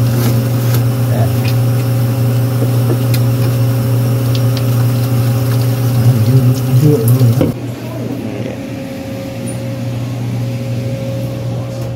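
A steady low mechanical hum, like a running motor. About seven and a half seconds in it drops off sharply to a quieter hum.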